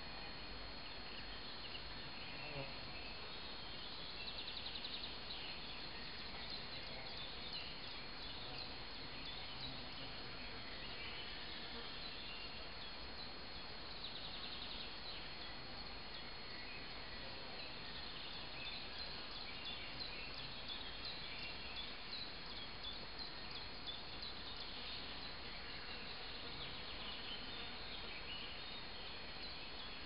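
Outdoor forest ambience: scattered bird chirps and short rapid trills every several seconds over a steady hiss, with insects buzzing and a thin, steady high tone.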